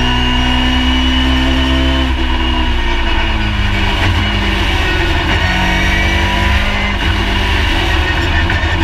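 Ford Escort Mk II rally car engine heard from inside the cockpit, running hard at high revs. The pitch falls about two to three seconds in, then holds steady at lower revs with a rougher sound.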